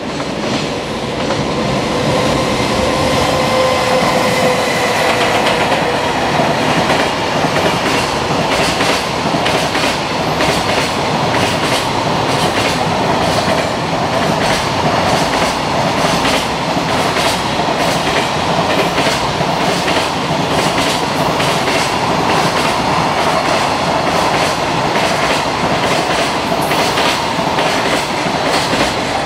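Long freight train of container wagons passing at speed, its wheels clattering steadily and rhythmically over the rail joints. A high whine fades away in the first six seconds.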